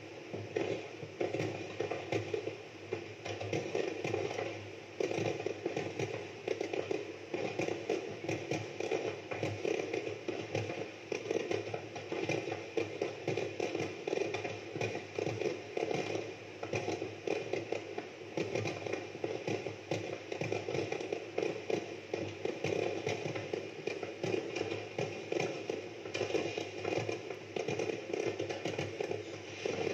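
Fireworks display: many aerial shells bursting and crackling together in a rapid, unbroken barrage of bangs.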